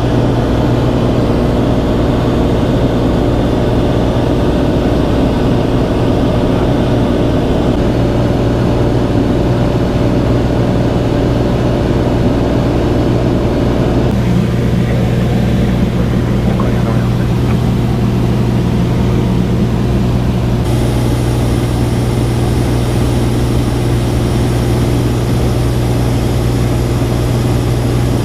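Cessna TTx single-engine piston airplane's engine and propeller droning steadily in flight, with a strong low hum. The tone shifts abruptly about halfway through and again about three-quarters of the way in.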